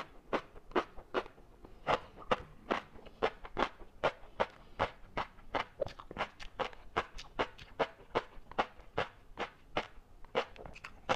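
Close-up chewing of large-grain flying fish roe (tobiko), the eggs giving crisp popping clicks about two to three times a second.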